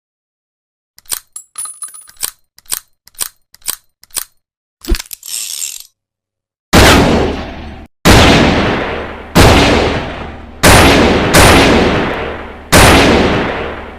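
.357 Magnum revolver: a run of small metallic clicks, then six loud shots over about six seconds, each with a long ringing tail.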